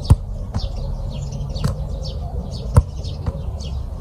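Sharp thuds of a football being struck and caught in goalkeeper gloves, several times, the loudest near the start and a little after halfway. Small birds chirp repeatedly in the background.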